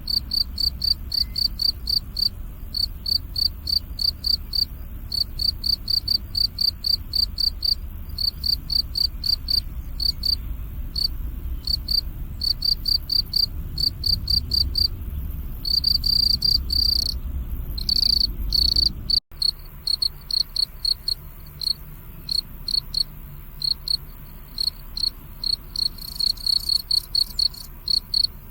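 Crickets chirping: a steady train of short, high chirps several times a second, running together into longer trills for a few seconds past the middle, over a faint low rumble that stops at a brief dropout about two-thirds of the way through.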